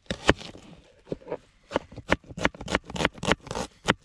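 Kitchen knife slicing a red onion on a plastic chopping board: a run of sharp chopping taps. After the first second they settle into a steady pace of about three to four a second.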